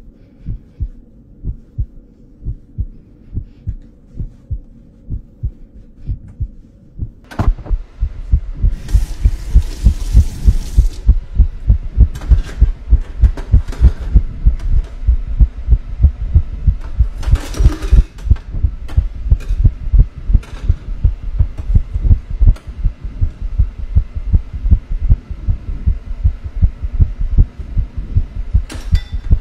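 Heartbeat sound effect: a steady run of low thumps that becomes louder and faster about seven seconds in, with two short hissing sounds over it.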